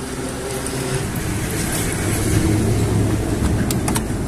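A motor vehicle's engine running nearby, a low steady hum that swells toward the middle and eases off, with a few light clicks near the end.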